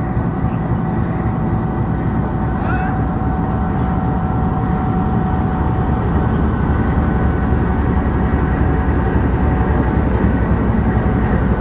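Pakistan Railways GEU-20 diesel-electric locomotive running as it pulls out with its train, a steady engine rumble with a faint whine on top, growing a little louder as the locomotive passes.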